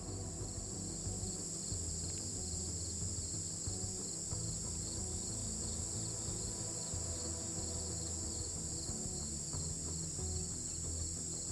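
Steady chorus of insects, a continuous high buzz with no breaks, over soft background music.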